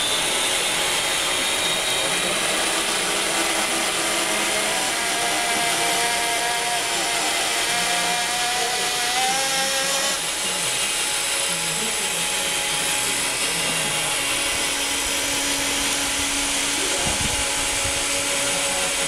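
Radio-controlled 18-wheeler's drive motor and gearbox whining steadily as the truck hauls its loaded lowboy trailer across the floor. The whine rises slightly in pitch over a few seconds, then drops about halfway through.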